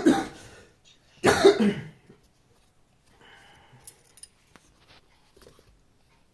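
A young child coughing: two loud, high-pitched coughs, one right at the start and one about a second and a half in, followed by faint soft sounds.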